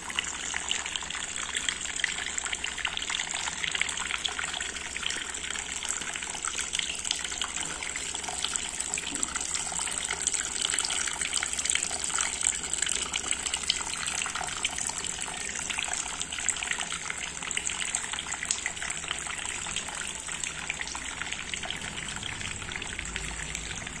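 Small homemade cement tabletop waterfall fountain running: water falls in a steady stream from the upper basin onto pebbles in the lower basin and splashes continuously.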